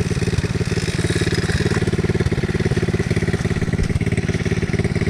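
ATV engine running steadily, its exhaust an even, rapid train of pulses with no big revs.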